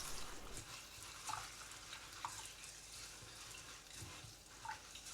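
Lentils being washed by hand in a bowl of water: faint swishing with a few light clicks.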